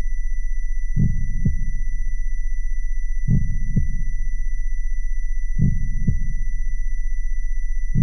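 Slow heartbeat sound effect: a double thump, lub-dub, about every two and a quarter seconds, three times plus a fourth at the very end. It sits over a steady low hum and a thin, steady high-pitched tone.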